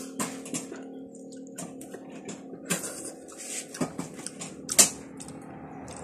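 Close-up eating sounds: fingers picking apart grilled fish and rice on a leaf, with a run of sharp clicks and smacks, the loudest nearly five seconds in, over a faint steady hum.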